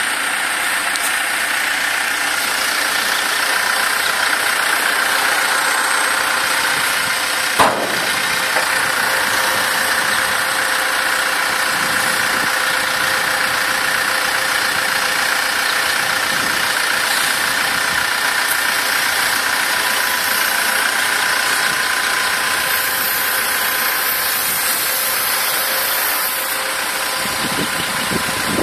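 Caterpillar 416E backhoe loader's diesel engine running steadily under work as the front loader bucket is raised and tipped into a dump truck. One sharp knock about eight seconds in.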